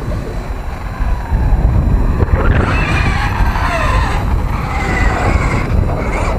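Losi Super Baja Rey RC truck's brushless electric motor whining, rising and falling in pitch as the throttle is worked while it drives on grass, over a low rumble of wind on the microphone.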